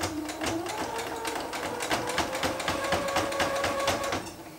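Brother domestic sewing machine stitching, a quick run of needle clicks over its motor whine, which steps up in pitch about a second in. It stops shortly before the end.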